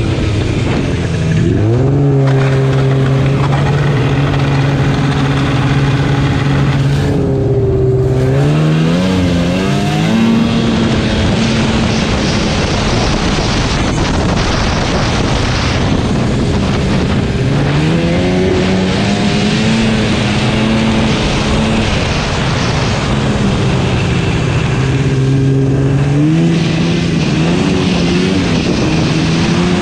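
Snowmobile engine running under way, its pitch holding steady, then climbing and dropping several times as the throttle is opened and eased off, over a steady rushing noise of wind and track.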